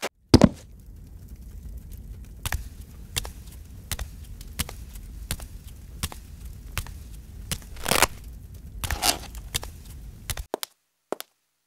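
Fire crackling: sharp pops every half second or so over a low, steady rumble, with a louder rushing burst about eight seconds in. The sound cuts off abruptly near the end.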